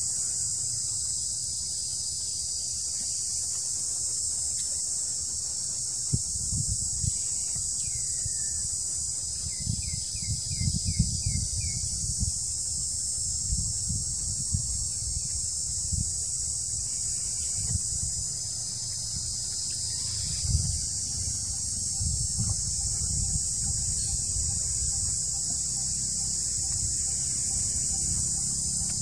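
A steady, high-pitched chorus of insects that runs without a break, with uneven low rumbling underneath through the middle. About ten seconds in comes a brief run of about six quick high chirps.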